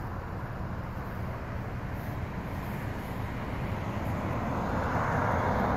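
Road traffic noise: a steady low rumble with a vehicle passing, which swells from about four seconds in.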